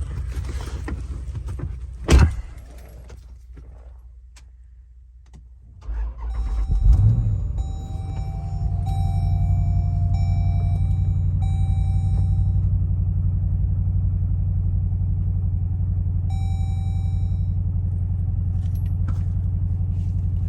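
A Jeep Grand Cherokee SRT's HEMI V8 cranking and catching about six seconds in, flaring briefly, then settling into a steady idle after a new alternator has been fitted. Dashboard warning chimes repeat over the idle, and a single loud knock sounds about two seconds in.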